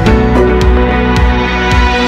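Background music: sustained low notes with a few light percussive hits.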